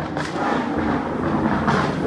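Camaro SS 6.2-litre LT1 V8 running loud through catless long-tube headers, with sharp exhaust pops over the rumble, one just after the start and more near the end.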